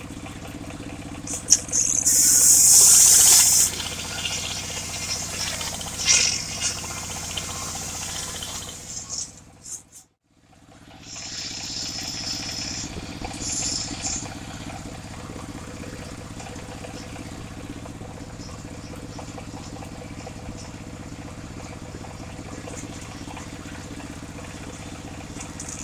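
Chainsaw engine idling steadily, with loud bursts of hiss about two seconds in and again later.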